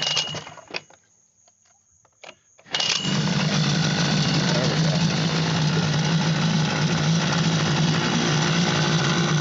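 Outboard boat motor being started after a water pump impeller replacement: a short first start attempt, then about three seconds in it catches and settles into a steady run.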